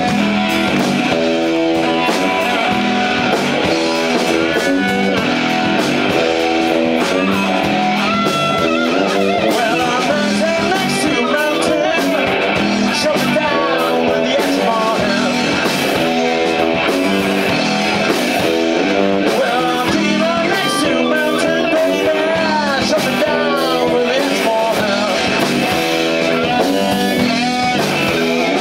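Live rock band playing loudly: electric guitar through Marshall amplifiers, with a man singing into a microphone at times.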